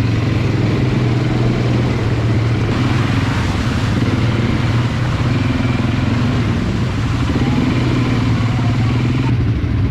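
ATV (quad bike) engine running steadily while being ridden, a loud, even drone.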